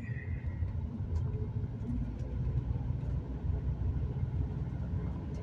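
Steady low rumble of road and engine noise inside a moving vehicle driving along a highway.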